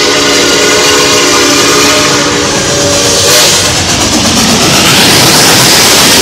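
Santa Fe 3751's steam whistle blowing one long chord, which cuts off about three seconds in. Then the 4-8-4 steam locomotive passes close by, loud with the rush of its exhaust and running gear.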